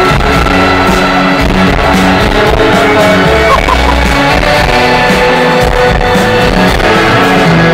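Rock band playing live, with electric guitars and drums over held notes, loud and steady from within a concert crowd.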